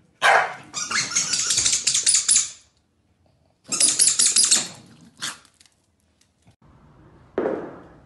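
Two corgis snarling and barking at each other as they scuffle, in two long harsh bursts, the first about two seconds long and the second about a second, with a short yap just after the second.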